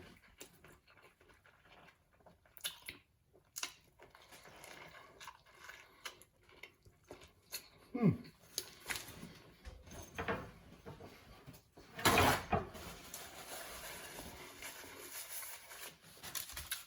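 A person chewing a big sub sandwich close to the microphone: wet mouth clicks and smacks. There is a louder rush of noise about twelve seconds in.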